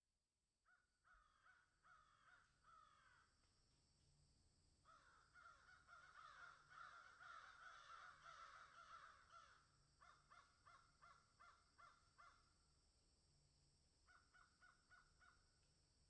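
Faint crows cawing in repeated series of calls, several overlapping at times, densest in the middle.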